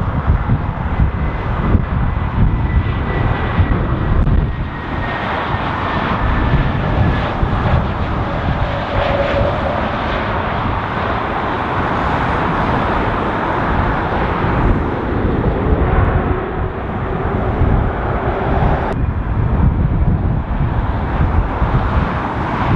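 Jet engines of a Vueling Airbus A320-family airliner on approach and landing: a roar that builds from about five seconds in, with a faint high whine, over heavy wind buffeting the microphone. About 19 seconds in it cuts sharply to wind and the more distant engines of an Aer Lingus Airbus A320 on approach.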